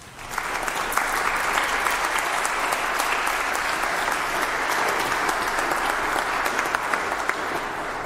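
An audience applauding, starting suddenly and holding steady, then beginning to die away near the end.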